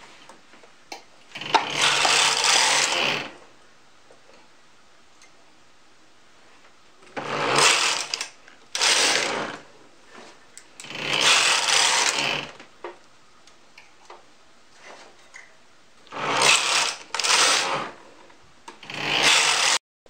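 Carriage of a Brother 260 bulky knitting machine being pushed back and forth across the needle bed, knitting row after row. Seven sliding, rattling sweeps, each a second or two long, with short pauses between them.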